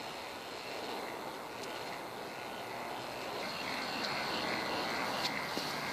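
K'NEX spirograph machine running: a steady whir from its plastic gears and turning arms, a little louder in the last couple of seconds, with a few faint clicks.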